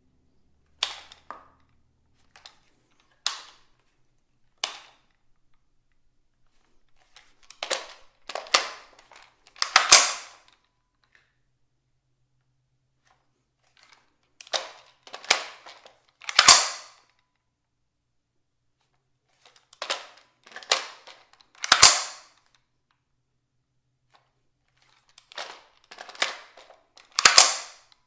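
Dry reloading of an unloaded Ruger 10/22 semi-auto .22 rifle: magazine and bolt clicks and clacks in several bursts, each ending in a loud, sharp metallic clack. Each one rings briefly off the hard tiled walls of a small bathroom.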